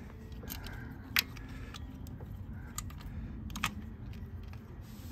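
Light metal clicks and clinks from the compression tester's hose and threaded adapter being handled and fitted into a spark-plug hole: a handful of short, sharp ticks, the sharpest about a second in, over a faint steady background noise.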